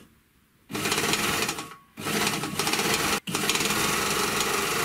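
Gemsy 1D three-thread overlocker starting up and sewing at speed, a fast steady mechanical chatter. It runs in three stretches, with a short pause just before two seconds in and a brief stop at about three seconds.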